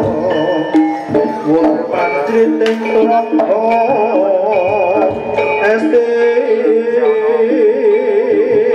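Live jaranan dance accompaniment music: a wavering melody line with strong vibrato over drums and steady struck metal tones.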